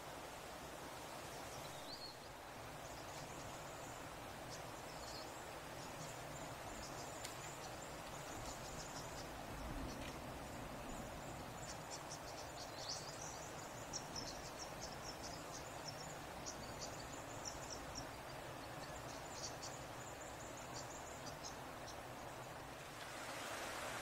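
Faint outdoor bush ambience: irregular bursts of high-pitched chirping and short trills over a steady hiss. The hiss grows louder near the end.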